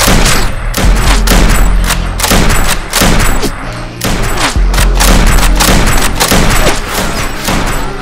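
Rapid, repeated blaster shots, several a second, with no pause, over a music track with a heavy steady bass.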